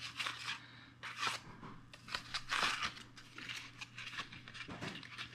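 Small cardboard bulb box and its foam insert being handled: irregular rustling and scraping as the insert is slid into the box and the box closed.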